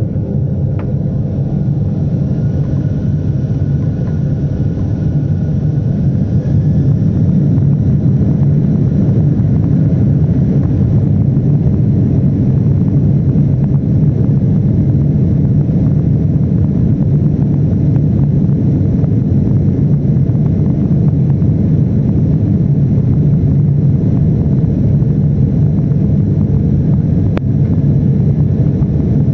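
Steady low rumble of a Boeing 767-400's jet engines and rushing air, heard inside the cabin. It grows a little louder about six seconds in, with a faint whine rising in pitch.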